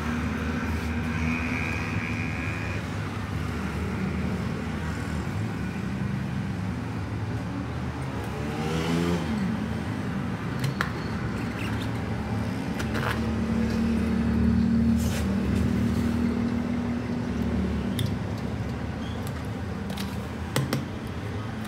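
Motor vehicle engines running steadily, with one passing about 9 s in, its pitch sliding down.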